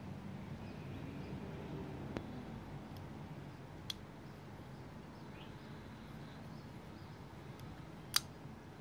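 Folding karambit knife clicking as it is worked by hand: a faint click about two seconds in, another just before four seconds as the blade is folded shut, and a sharp, louder snap near the end as the blade is swung open and locks.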